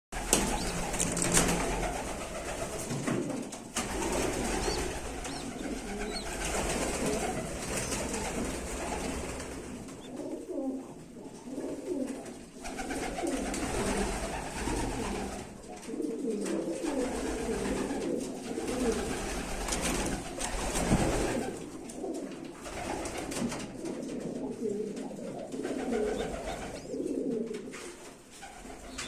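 Domestic pigeons cooing over and over, their low, wavering calls overlapping throughout.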